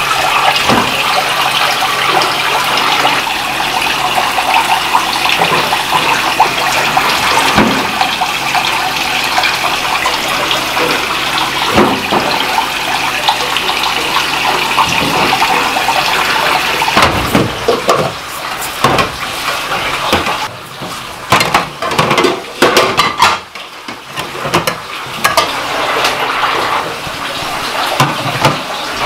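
Water running from a kitchen tap into a stainless-steel sink, a steady rush that breaks off about halfway and gives way to scattered knocks and clatter.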